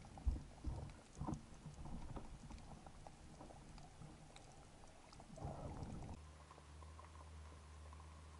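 Faint water sounds picked up by an action camera at and below the sea surface: scattered knocks and splashes, a short rush of water about five seconds in, then a steady low hum once the view is underwater.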